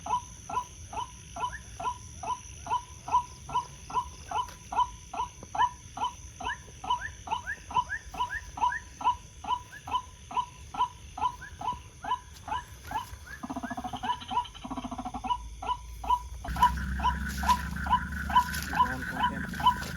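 White-breasted waterhen calls: short rising notes repeated about two to three times a second without a break. A steadier rushing noise joins under them about three-quarters of the way in.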